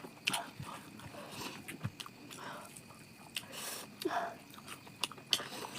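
A person eating close to the microphone: chewing and biting food, with irregular sharp mouth clicks and crunches.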